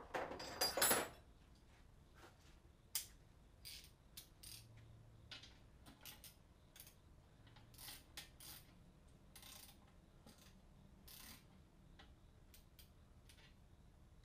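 Hand tools being handled and rummaged through in a tool case: a burst of clattering in the first second, then scattered clinks, clicks and knocks with a few brief rustles.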